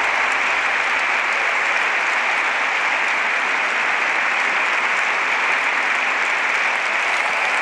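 Large audience applauding: a dense, steady wash of many hands clapping.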